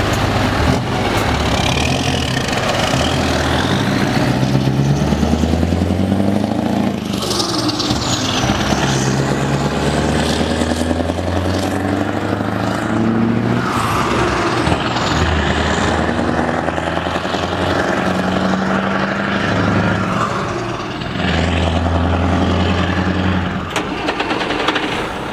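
Scania R500 V8 diesel truck pulling away and accelerating through its gears: the engine note climbs and then drops back at each gearshift, several times over.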